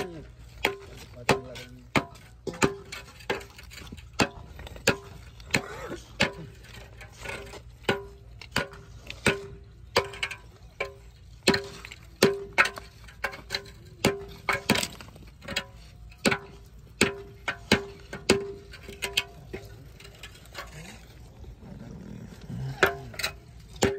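Repeated sharp knocks of a mason's metal tool striking stone blocks, each with a short ringing note, about one or two a second and unevenly spaced, thinning out near the end.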